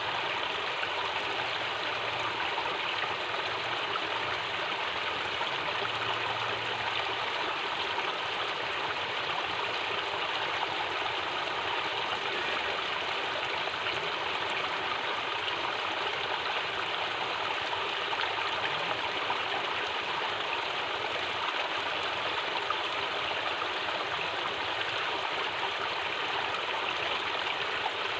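Water of a hill stream (aruvi) rushing steadily, an even, unbroken rush of flowing water.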